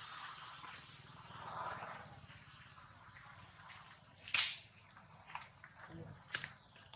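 Steady high-pitched insect drone, with a few sharp clicks, the loudest about four and a half seconds in.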